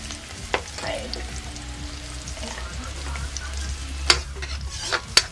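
Chopped onion and garlic sizzling in oil in a metal wok, toasting, while a metal spatula stirs them and scrapes and taps against the pan a few times, the sharpest clicks about four seconds in and just before the end.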